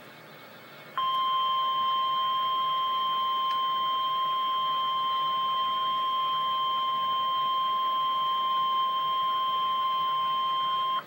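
NOAA Weather Radio 1050 Hz warning alarm tone: a single steady, loud tone that starts about a second in, holds for about ten seconds and cuts off abruptly, signalling that a severe thunderstorm warning follows.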